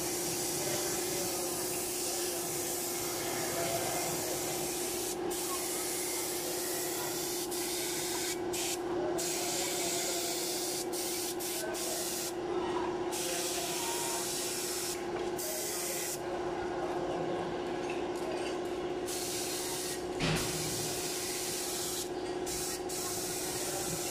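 Gravity-feed air spray gun spraying enamel paint: a steady hiss of compressed air and atomised paint that breaks off briefly several times as the trigger is let go, over a steady low hum. A single brief knock about twenty seconds in.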